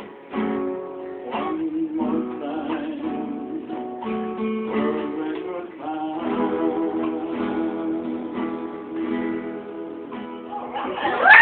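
Acoustic guitar playing an instrumental passage of strummed chords and picked notes. Near the very end a much louder sound rises in.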